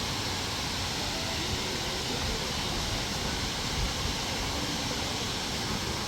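Bousra Waterfall's water pouring down: a steady rush of falling water.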